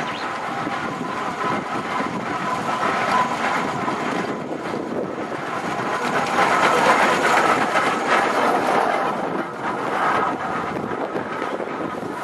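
1913 Aveling & Porter GND steam road tractor running along the road towing a trailer, approaching and passing by. It is loudest about seven seconds in and fades as it moves away.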